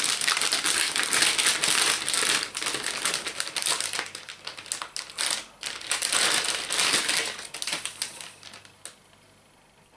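Crinkling and crackling of a metallised anti-static bag being handled as a motherboard is slid out of it, dying away about a second before the end.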